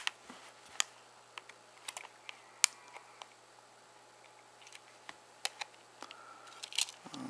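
A scattered, irregular run of short, sharp plastic clicks and snaps as a prying tool works along the edge of a BlackBerry 8300-series (Curve) housing, prising its clip tabs loose.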